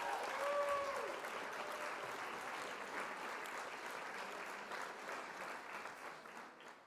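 A crowd applauding, with a few cheers in the first second, slowly fading toward the end.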